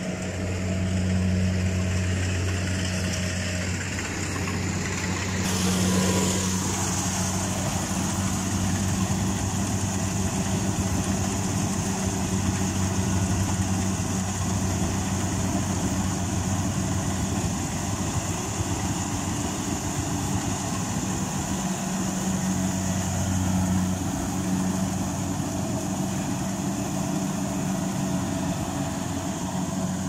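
Kubota combine harvester's engine running steadily under load as it cuts rice, with a higher tone that slides down in pitch about six seconds in.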